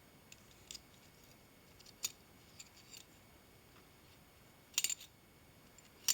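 Light metallic clicks and clinks of sheet-brass hinge leaves being fitted together on a brass rod pin and worked back and forth. A few scattered clicks, with a quick cluster of them a little before the end.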